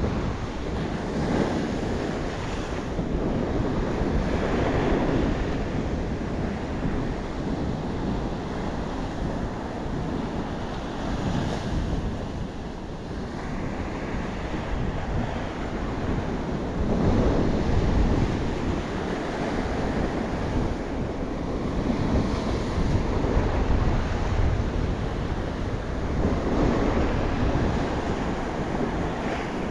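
Ocean surf breaking and washing up a sandy beach, swelling and easing every several seconds, with wind buffeting the microphone as a low rumble.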